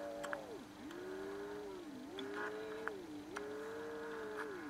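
Low heterodyne beat note whistling from an AM receiver: a weak broadcast station beating against the clock radio's local oscillator. Its pitch sags and swoops back several times as a finger pokes the coil cans and pulls the oscillator frequency, over a steady lower tone.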